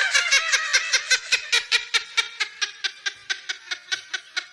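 Laughter: a rapid run of short 'ha' bursts, about seven a second at first, slowing and growing quieter toward the end.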